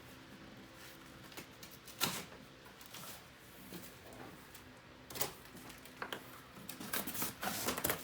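A cardboard shipping box being opened and handled: irregular scrapes, rips and knocks of cardboard and packing. One loud one comes about two seconds in, and they bunch together near the end.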